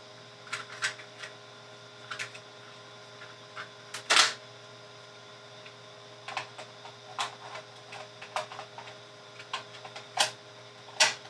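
Scattered plastic clicks and knocks from a tape cartridge and a Brother P-touch label maker being handled, the loudest about four seconds in and twice near the end, over a steady electrical hum.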